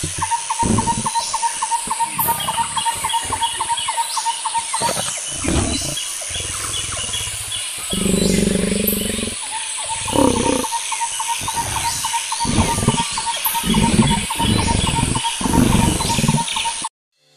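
Lion roaring: a series of deep calls, one longer call about eight seconds in and shorter grunts toward the end, over birds chirping. The sound cuts off suddenly near the end.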